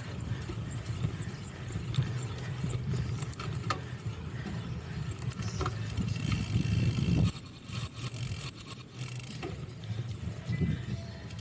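Cyclocross bike ridden hard over a rough course: wind on the microphone and the chain and frame rattling over bumps, with a run of heavier jolts about seven to nine seconds in.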